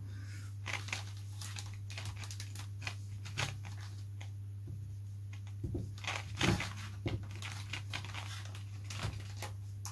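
Faint crinkling and rustling of plastic heat-shrink covering film on a balsa wing as a covering iron is pressed and slid along it and a hand smooths it down, with a few soft taps, over a steady low hum.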